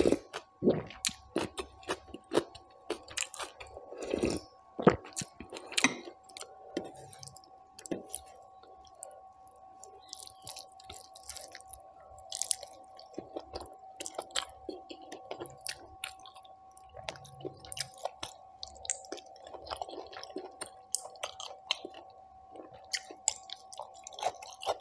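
Close-miked eating sounds: wet chewing, lip smacks and mouth clicks from eating mutton curry and rice, with a sip of broth from a spoon at the start. A faint steady hum lies underneath.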